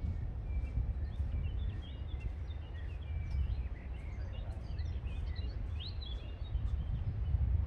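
Wind rumbling on the microphone, with small birds chirping and twittering rapidly over it, busiest from about one second in to near the end.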